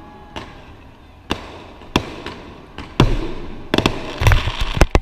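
Fireworks going off: single bangs about a second apart, each with a trailing echo, then a quicker run of bangs near the end.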